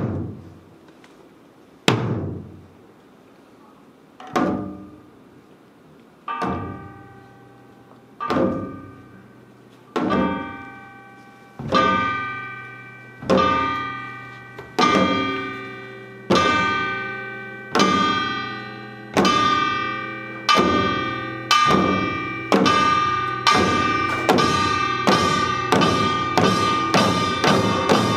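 Korean samulnori percussion ensemble, janggu hourglass drums and metal percussion, striking together in unison. The hits start slow, about two seconds apart, each ringing out, then speed up steadily and grow louder until they come about twice a second.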